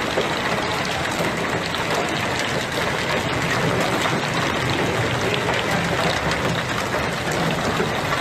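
Heavy downpour of hail and rain: a dense, steady patter of countless small impacts with a constant hiss.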